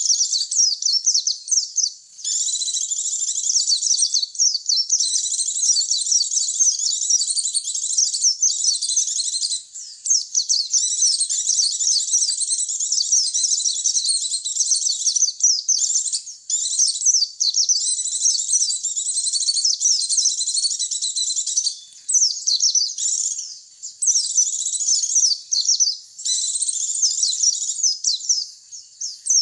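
White-eye (pleci) song: a fast, high-pitched twittering chatter in long run-on phrases, broken by several short pauses. It is a lure song for drawing wild white-eyes.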